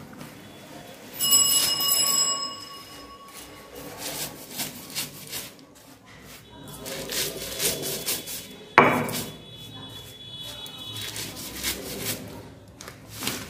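Stone roller rubbed back and forth over a stone grinding slab (shil-nora), crushing popped rice (khoi) in a run of gritty scraping strokes. A brief ringing tone sounds about a second in, and a single sharp knock, the loudest sound, comes past the middle.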